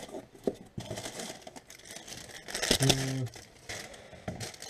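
Plastic bubble wrap crinkling and rustling as it is handled and pulled out of a cardboard box, loudest about three seconds in. A short vocal sound from the person comes at the same moment.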